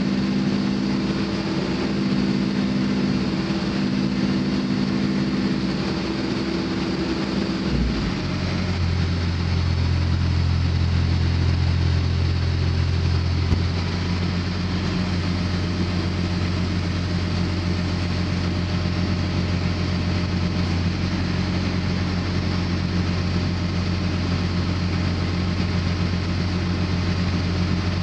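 Case N Series backhoe loader's diesel engine running steadily. About eight seconds in its note changes abruptly to a lower, deeper drone, which then holds steady.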